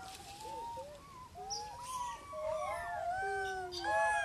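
A macaque troop calling: many short, overlapping coo calls from several monkeys, each rising and falling in pitch, growing busier near the end.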